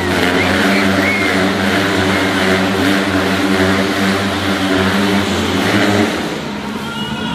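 Motorcycle engines running at high, steady revs inside a steel-mesh globe of death, a continuous drone that falls away about six seconds in.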